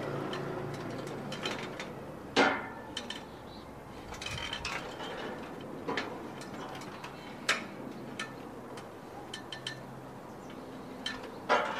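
Metal frame parts of a square-tube farm-hut frame knocking and clinking as they are fitted together by hand. There are a few sharp knocks about two and a half, six and seven and a half seconds in, with lighter ticks between them.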